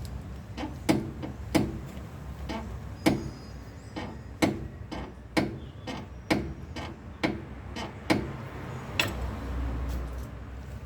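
Rear suspension of a 2010 Hyundai i30 giving a series of sharp clicks and knocks, about one a second, a door-like creak-knock; the sign of a worn rear control-arm bushing.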